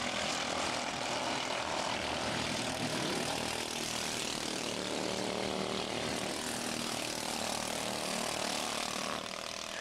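Mini cup race cars' small engines running hard around the oval, a steady buzzing drone whose pitch rises and falls as the cars pass and change speed through the turns.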